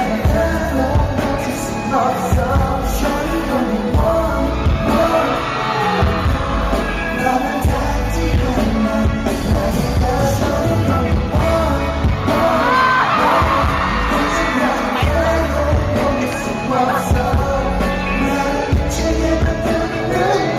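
Live pop concert music through a loud PA: a heavy bass beat with singing over it.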